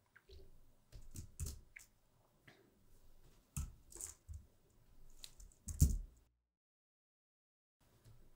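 Scattered clicks of a computer mouse and keyboard keys as software is operated, a dozen or so short taps at uneven intervals, the loudest a little under six seconds in. The sound then cuts to dead silence for about a second and a half.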